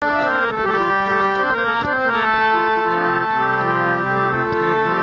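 Harmonium playing an instrumental introduction: long held drone notes under a melody that moves in steps, its reedy keyboard tone continuous throughout.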